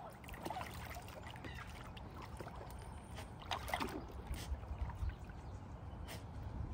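Ducks bathing in a shallow plastic tub of water: scattered light splashes and dabbling, with drips.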